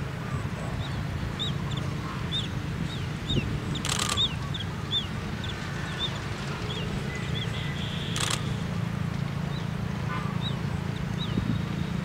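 A small bird giving short, high chirps, repeated about one to two times a second, over a steady low rumble, with two sharp clicks about four and eight seconds in.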